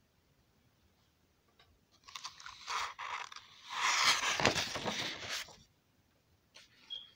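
Sheet of drawing paper being turned and handled, a crinkly rustle with small crackles that starts about two seconds in, is loudest around the middle and stops a little before the end.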